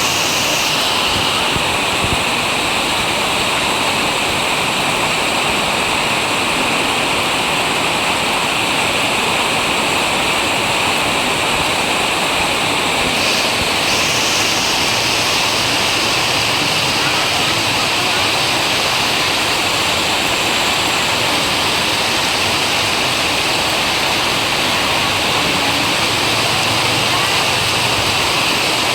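Heavy rain pouring down in a loud, steady, unbroken hiss.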